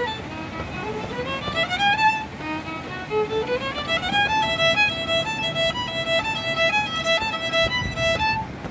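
Solo violin playing a melody: a run climbing up, dropping back and climbing again, then a quick figure rocking back and forth between two notes, with a steady low rushing noise underneath.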